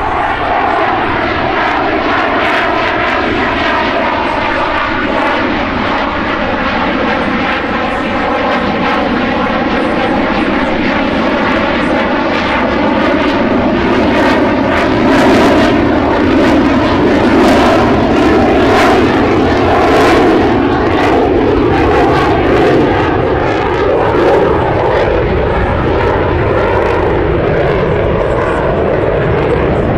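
Boeing F/A-18E Super Hornet's twin General Electric F414 turbofan jet engines, loud and continuous as the jet passes low and climbs away. A whooshing tone slides lower and then higher, with a rapid crackle through the middle stretch.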